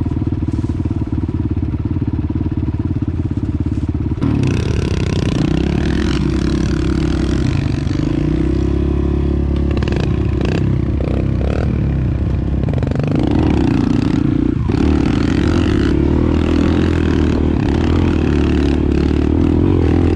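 Kawasaki KLX dirt bike's single-cylinder four-stroke engine idling, then about four seconds in revving up and pulling away. It keeps running with the pitch rising and falling as the throttle opens and closes.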